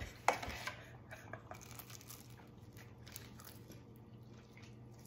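Soft crunching and crackling of people biting into and chewing a flaky croissant, with a sharper crack about a third of a second in.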